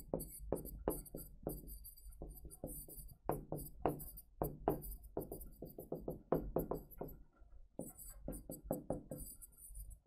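A pen writing on a writing board: a quick, irregular run of small knocks and scrapes as words are written out, over a faint low hum.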